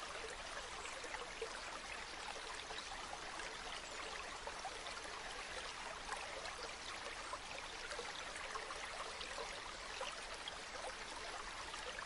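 Running water, babbling steadily, with many small splashes and trickles.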